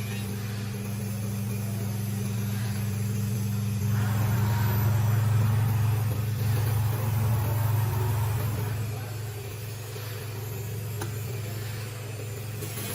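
5-axis CNC router running as it machines foam: a steady low hum under a hissing cutting noise that swells a few seconds in and then eases off.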